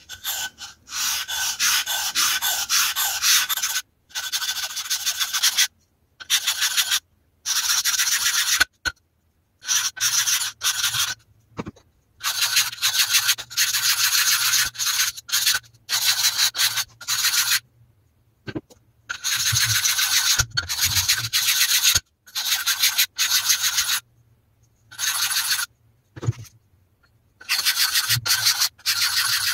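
An Apex-format sharpening stone's edge being rubbed with rocking strokes on a wet gabbro granite lapping plate in silicon carbide slurry, rounding off the stone's chamfers. The gritty scraping comes in runs of a few seconds of quick strokes, with short pauses between them.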